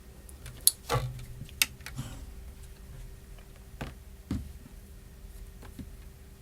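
Small hand tools and tiny parts clicking and tapping against an iPhone 4S during disassembly: about half a dozen sharp, separate clicks, the loudest ones in the first two seconds and a couple more near the middle. A faint steady hum runs underneath.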